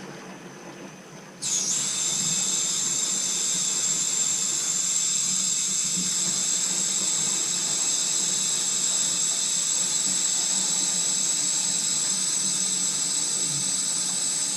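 Steady hiss of water rushing through a valve into the water heater's piping as the system is filled, starting abruptly about a second and a half in.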